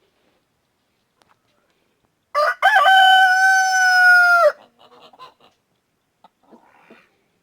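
Rooster crowing once: a short opening note, then a long held note that drops slightly at the end. Faint clucks follow.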